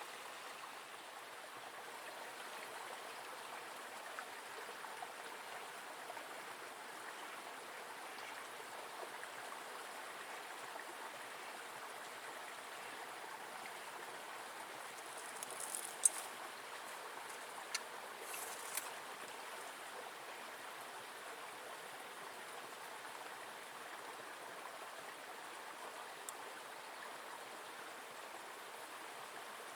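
Small forest river flowing steadily, a continuous rushing of water. Two brief high-pitched sounds stand out just past the middle.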